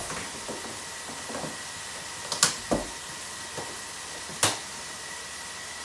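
Kitchen clatter: three sharp knocks of things being set down or handled on the bench, the loudest about two and a half seconds in, over a steady low hiss of chicken pieces frying in a wok.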